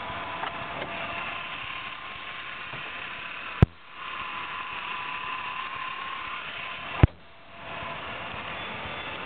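1997 Mercury Sable GS's V6 engine idling steadily with a faint steady whine, heard with the hood open. Two sharp clacks cut in, one just before the middle and one near the end, each followed by a short drop in the engine noise.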